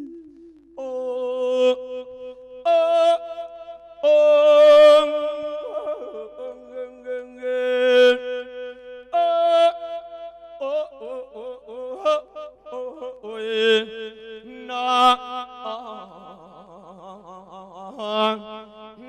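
A Buddhist monk singing lae, the melodic Isan chanted sermon, amplified through a microphone. He sings long held notes and wavering, sliding runs, in phrases separated by short breaks.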